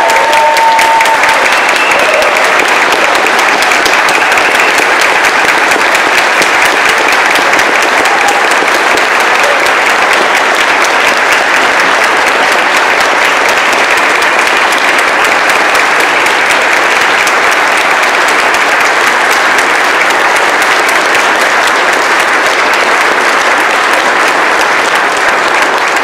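A large church congregation applauding, with steady, sustained clapping throughout.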